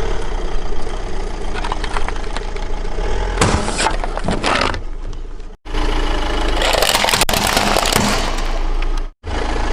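Car engine running slowly as a tyre rolls over and crushes crunchy objects, with stretches of crackling and snapping. The sound cuts out abruptly twice between clips.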